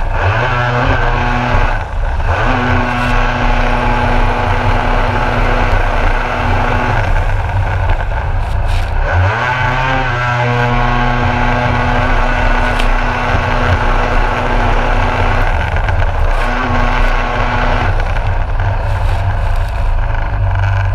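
Kawasaki SXR stand-up jet ski engine running at high revs under hard riding, its pitch dropping and climbing back a couple of times as the throttle is eased and reopened through turns, with water spray hissing over the hull.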